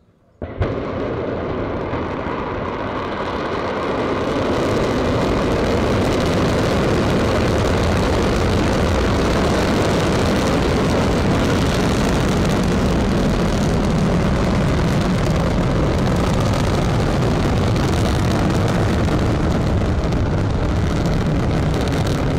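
Long March 2C rocket's first-stage engines igniting with a sudden blast about half a second in, then a loud, steady rumbling rush of rocket exhaust as the rocket lifts off and climbs. The noise builds over the first few seconds and then holds.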